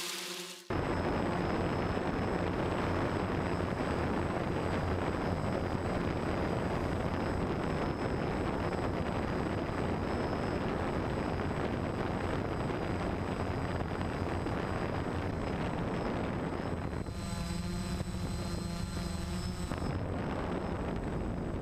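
DJI hexacopter's electric motors and propellers running in flight, heard from the GoPro mounted on it: steady rotor and wind noise with a low hum, starting abruptly about a second in. A pitched tone joins for a few seconds near the end.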